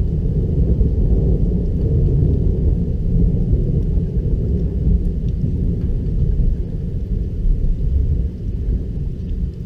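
Rolling thunder, a low, continuous rumble that holds steady at about the same loudness.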